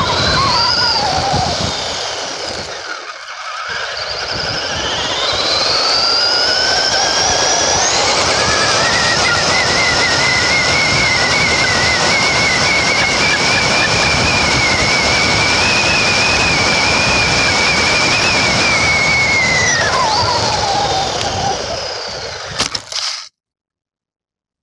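Traxxas Bandit RC car's brushed electric motor and gears whining, heard from a camera on the car with rough road and wind noise under it. A short burst and let-off, then the whine climbs to full throttle on a 2S LiPo, holds at a high pitch for over ten seconds on a top-speed run, and falls away as the car slows, before the sound cuts off suddenly near the end.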